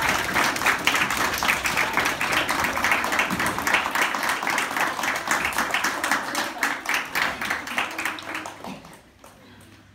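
A roomful of people clapping, the applause dying away near the end.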